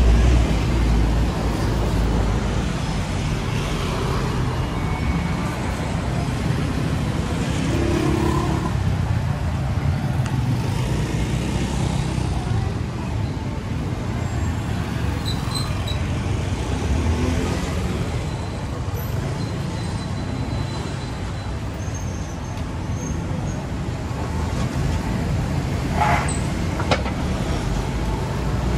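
Steady city street traffic: motor vehicles running past on a busy road, with a low engine hum under the road noise. A brief sharp click near the end.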